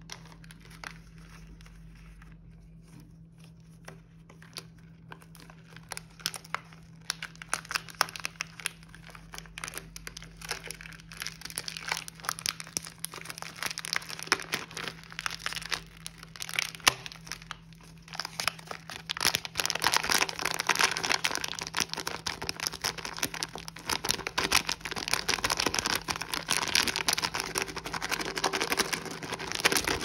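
Silver foil and plastic candy wrappers being crinkled and peeled by hand. Sparse crackles at first, building into dense, louder crinkling in the second half.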